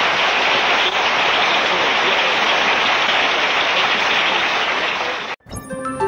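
Audience applauding, a dense, steady clatter of clapping that cuts off abruptly about five seconds in; music begins right after.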